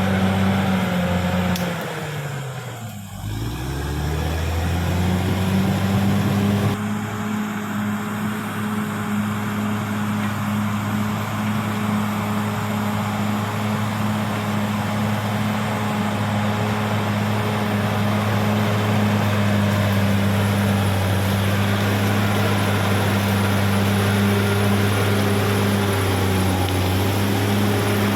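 Caterpillar D6R XL bulldozer's diesel engine running steadily. About two seconds in, the engine note drops briefly and then climbs back.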